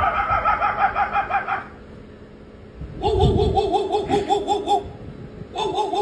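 A recorded laugh played three times in a row from a loudspeaker, each time a quick string of 'ha-ha' pulses about six a second, with short pauses between.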